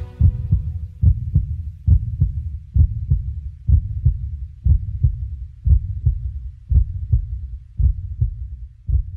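Low, heartbeat-like double thumps, about one pair a second, in a sparse passage of the background music track with little else over them.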